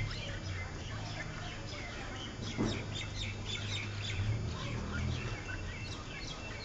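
Many birds chirping, with short, quick calls falling in pitch and overlapping continuously, over a low steady hum.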